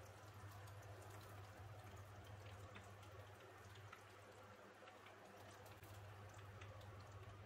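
Near silence: a low steady hum with a few faint, scattered ticks.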